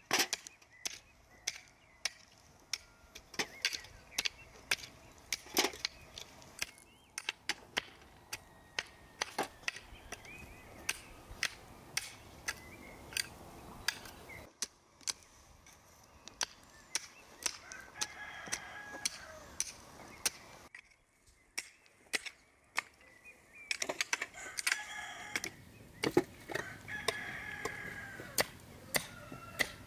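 Garden hoe chopping into soil, a sharp strike every second or so. Chickens call in the background a little past the middle and again near the end.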